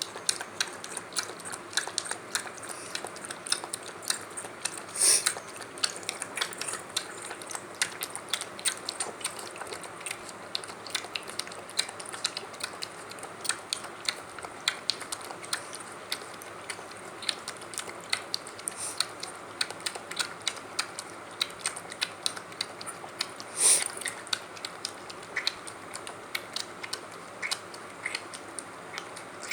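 Puppy eating from a bowl: fast, irregular crunching and chewing clicks that go on throughout, with two louder knocks, one about five seconds in and one near the end.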